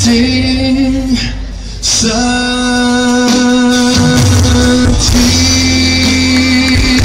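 A male lead singer holds long sung notes over a live band playing a pop-rock song. The band dips briefly in loudness just before two seconds in, then comes back in.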